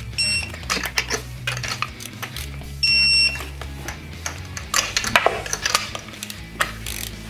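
Electronic torque wrench beeping as it reaches its set torque of 12 foot-pounds while tightening a spark plug on a Coyote 5.0 V8. There is a short beep just after the start and a longer, louder beep of about half a second around three seconds in, between metallic clicks of the wrench being worked.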